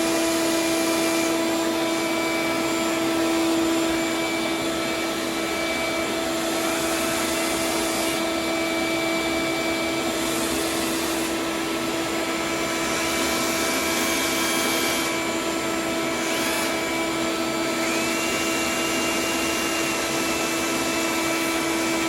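Vacuum running steadily with a constant whine, while 120-grit sandpaper is worked over a cured resin fill coat on a surfboard repair; the high hiss of the sanding comes and goes in stretches.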